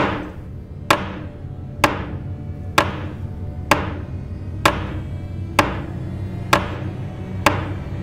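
Dramatic film-score percussion: nine sharp, echoing hits at a steady pace of about one a second over a low sustained drone.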